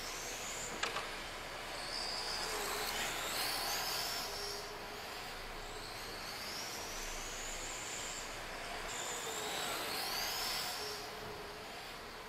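The brushless motor (XK3650 3200kV, running sensorless) of a 1/10-scale Blaze D2 RC car whines in repeated rising sweeps as it accelerates, over a hiss of its rubber tyres on concrete. There is a sharp click about a second in.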